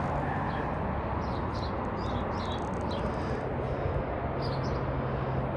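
Small birds chirping in short repeated calls over steady highway traffic noise.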